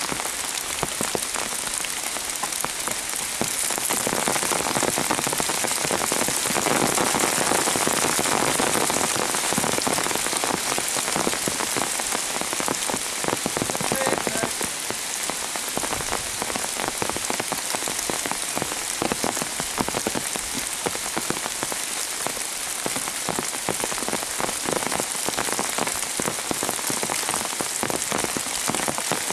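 Heavy rain falling, a steady dense patter of many drops.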